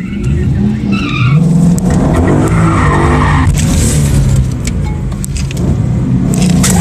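2014 Ford Mustang heard from inside the cabin, revving hard about a second in while the rear tyres spin and squeal for a second or two. It then drops back to a lower engine note as the car rolls forward.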